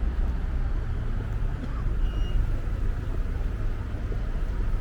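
City street ambience: steady low rumble of road traffic.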